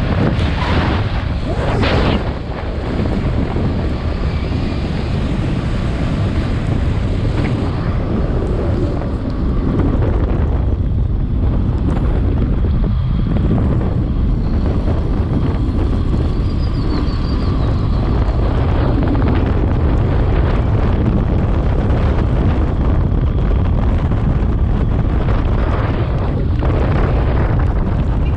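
Wind buffeting the microphone of a moving motorcycle, a loud steady rush with the bike's running noise beneath it.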